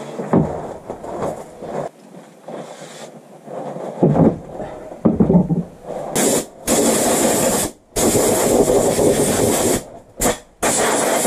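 Knocks and handling clatter, then from about six seconds in a run of pressurized spray hissing in sharp-edged bursts, the longest about two seconds. The spray is cleaning a Suzuki GN250 engine ahead of painting.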